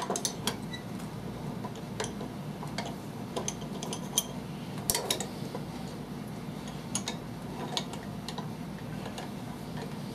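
Light, irregular metal clicks and taps as a bearing puller's jaws and screw are fitted and adjusted on the rotor shaft of a 3 HP table-saw motor, over a faint steady hum.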